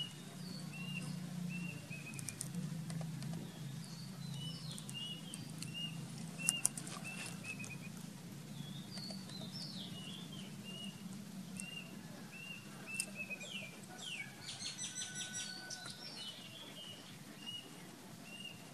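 Birds calling: a short high chirp repeated about twice a second, with other chirps and a fast rattling trill near the end. A steady low hum runs beneath.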